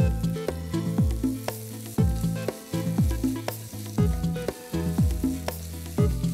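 Sliced onions sizzling as they fry in oil in a nonstick kadai, stirred and scraped with a wooden spatula, under background music with a steady bass-drum beat about once a second.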